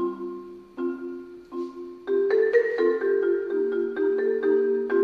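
Concert marimba played with four mallets: a few separate, ringing chords at first, then about two seconds in a louder passage of quick, continuous notes.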